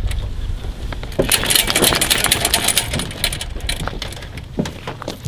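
Tie-out chains and fittings clinking and rattling against an aluminium dog box as hounds are chained onto it. The clatter is densest from about one to three and a half seconds in, over a steady low rumble.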